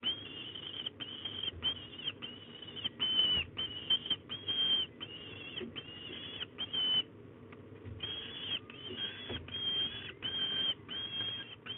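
Young peregrine falcons calling over and over with harsh drawn-out begging cries, about one and a half a second, with a short pause about seven seconds in.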